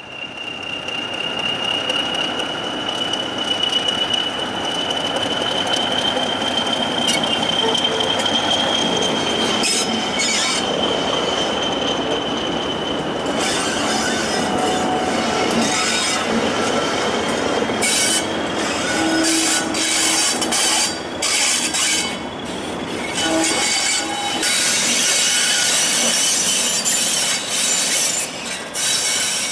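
A pair of English Electric diesel locomotives, a Class 40 and a Class 37, running past at low speed. A steady high whistle carries over the engine and wheel noise for about the first thirteen seconds. After that, sharp clicks and clacks of wheels over rail joints come through repeatedly.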